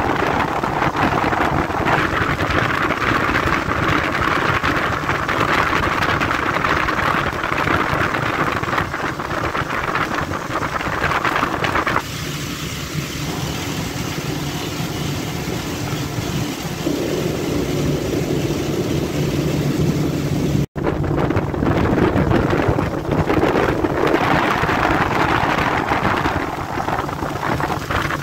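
Motorboat under way: the engine running under a steady rushing noise of wind and water. About twelve seconds in the sound changes to a quieter, lower, steadier engine hum, and after a brief dropout about twenty seconds in the louder rushing returns.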